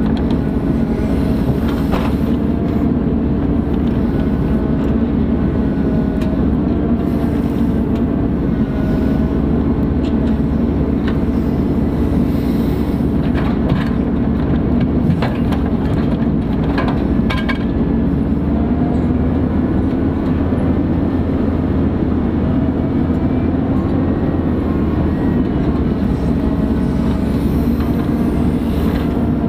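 Ponsse Buffalo forwarder's diesel engine running steadily, with faint whining tones that rise and fall above it. A few short sharp clicks come about halfway through.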